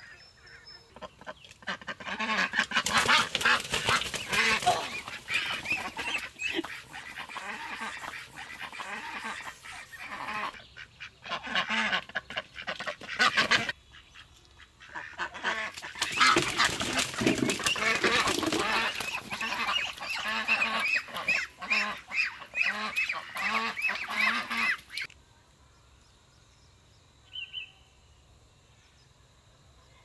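A flock of farm waterfowl calling and honking in a dense, noisy chorus, in two long spells with a brief lull between. It stops abruptly, and a single short call follows.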